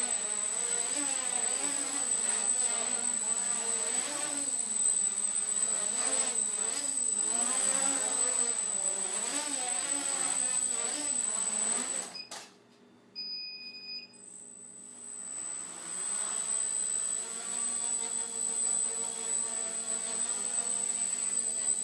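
Micro quadcopter's four tiny Turnigy 1811 2900kv brushless motors with 5030 props buzzing, the pitch wavering up and down as the throttle changes in flight. About twelve seconds in, a sharp click and the motors cut out, followed by a short electronic beep. The motors then spin back up to a steadier buzz.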